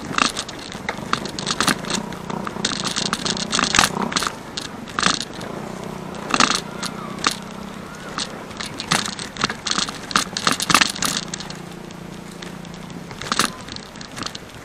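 Road bike rattling and its tyres crunching over a rough, rutted dirt road, with frequent sharp clicks and knocks from the bumps. A low engine hum comes and goes.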